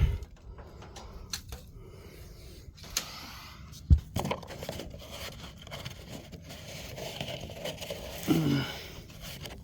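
Scraping and tearing of matted, dried lint being worked out of the end of a dryer vent pipe, with one sharp knock about four seconds in.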